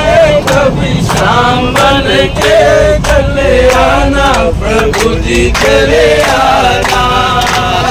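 A group of people singing a devotional chant together. Steady, rhythmic hand claps keep the beat.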